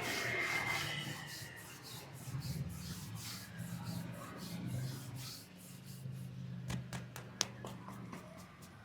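Hands rubbing and patting rhythmically in a head massage, about three to four strokes a second, with a few sharp clicks late on.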